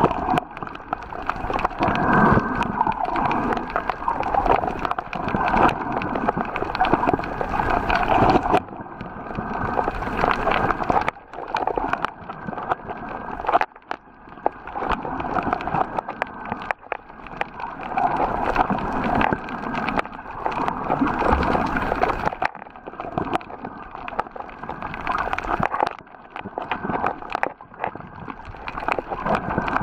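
Water sloshing and gurgling around an underwater camera, a noisy wash that swells and fades every few seconds with small clicks and knocks.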